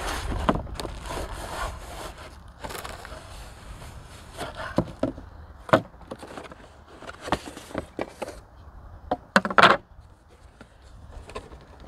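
A long cardboard box being opened and emptied by hand: cardboard scraping and rustling, with several knocks of wooden boards set down on a plastic table. The loudest clatter comes about three-quarters of the way through.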